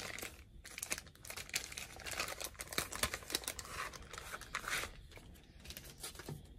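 Clear plastic packaging crinkling and rustling as it is pulled open and handled, with a booklet in a plastic sleeve slid out. The crinkling dies down about five seconds in.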